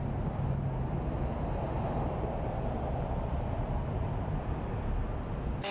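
Steady outdoor street noise: a low, even rumble of traffic.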